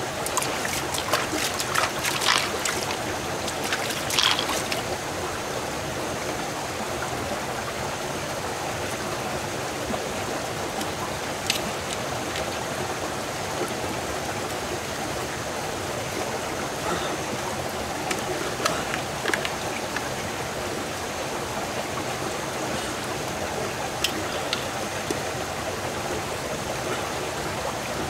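A small river running steadily over rocks. Sharp clicks and scrapes of a mussel shell being handled and pried with a knife come in a cluster in the first few seconds, then a few more scattered through.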